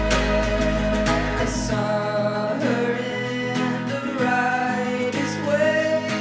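Music: a pop song with guitar and a sung melody; a low bass note cuts off about two seconds in.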